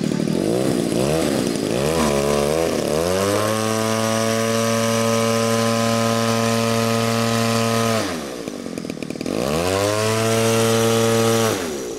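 Radio-controlled model biplane's engine running on the ground, uneven and wavering for the first few seconds, then settling to a steady run. About two-thirds through it is throttled back, opened up again, and throttled back once more near the end.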